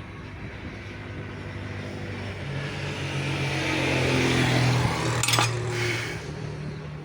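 A motor vehicle passing close by, its engine sound swelling and then fading as the pitch drops. A single sharp clink about five seconds in.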